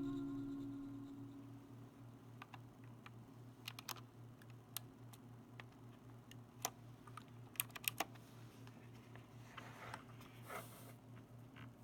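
Faint, irregular clicks of keys being pressed on a mechanical keyboard, scattered over several seconds, with a short rustle near the end and a low steady hum underneath.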